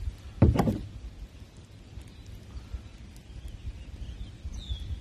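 Wind rumbling on the microphone, with one short loud burst about half a second in.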